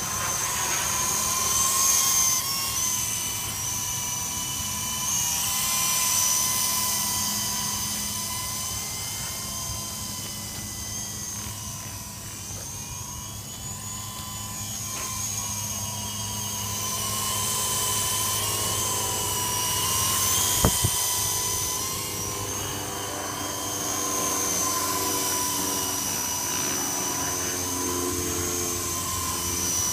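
Toy RC helicopter's electric motor whining and rotor whirring as it hovers and manoeuvres low, swelling and fading in loudness with the throttle. A single sharp click about two-thirds of the way through.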